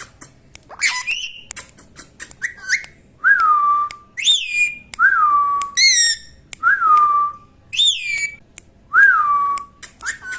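Pet green parrot whistling and calling: a string of whistled notes, each swooping up and settling on a held tone, alternating with higher, rasping calls about every second and a half, with a few short clicks and chirps in the first couple of seconds.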